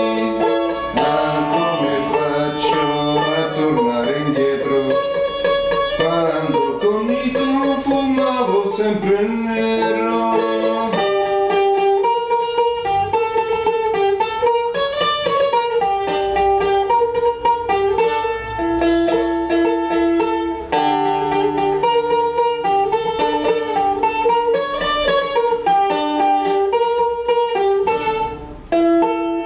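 Bouzouki played solo: a fast plucked melody with held notes sustained by rapid tremolo picking. There is a short break in the playing near the end before a final held note.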